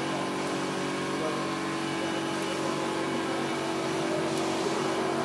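Large-format flatbed inkjet printer running, a steady machine hum as the print-head carriage shuttles across the bed, with faint ticks about every two seconds.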